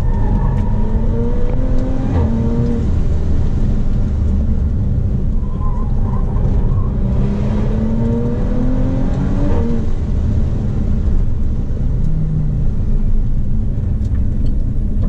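Audi B9 RS4's 2.9-litre twin-turbo V6 pulling hard, heard from inside the cabin, over a heavy low rumble. The engine pitch climbs and drops sharply about two seconds in, then climbs again and drops near ten seconds.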